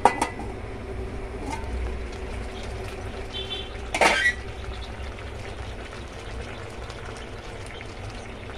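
A stainless steel lid clinks onto a wok as it is covered, followed by the steady faint bubbling of seafood and corn simmering in sauce. A short, louder metal clatter comes about four seconds in.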